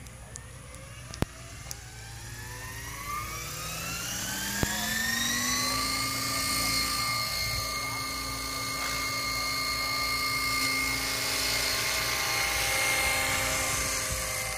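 Radio-controlled model helicopter's motor and rotor spooling up: a whine rising in pitch for about six seconds, then holding steady as it lifts off and flies. Two sharp clicks in the first five seconds.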